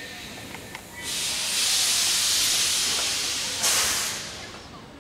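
Steam locomotive letting out a long, loud hiss of steam that starts about a second in, with a sharper burst near the end before it dies away, as the engine moves slowly.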